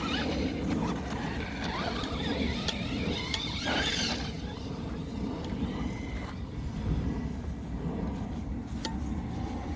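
Traxxas Rustler 4x4 VXL radio-controlled truck driving on loose dirt, its brushless motor whining and its tyres running over the dirt. The motor pitch rises and falls about four seconds in.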